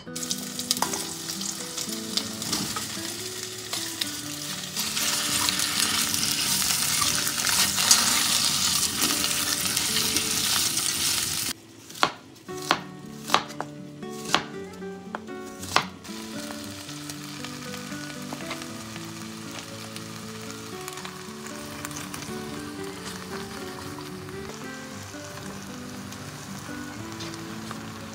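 Meat frying in oil in a cast-iron pot, a loud steady sizzle. About halfway through it gives way to half a dozen knife chops through an onion on a wooden cutting board, and then a quieter sizzle carries on.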